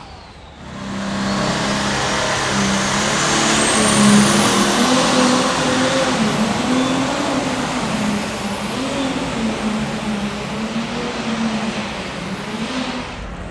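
Competition puller's engine at full throttle during a pull, with a turbocharger whine climbing in pitch over the first few seconds. The engine note wavers under load, then the sound tapers off and drops near the end.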